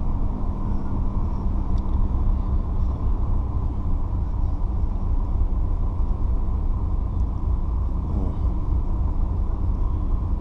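Car driving at low speed: a steady low rumble of tyre, road and engine noise.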